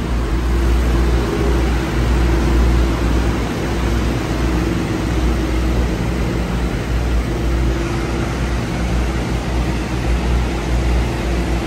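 Steady drone of a large diesel truck engine running, a low rumble with a steady hum above it.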